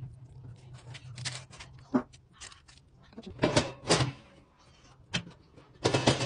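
Handling noises of raw bonito steaks and lemon slices being laid and pressed onto a foil-lined baking tray: a string of light taps and rustles, louder twice around the middle and again near the end, over a faint steady low hum.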